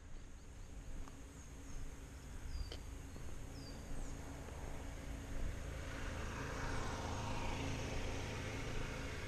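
Outdoor background: a steady low rumble, with a vehicle's noise swelling from about six seconds in, and a few short, high bird chirps in the first half.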